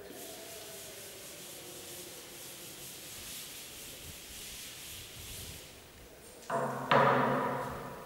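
Chalkboard duster rubbing back and forth across a blackboard, wiping off chalk writing. Near the end, two loud knocks about half a second apart, the second louder and ringing briefly.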